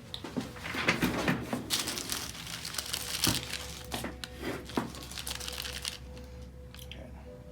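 Irregular rustling and crinkling, with a few light knocks, from movement and handling around the chiropractic table. It dies down after about six seconds, leaving a faint steady hum.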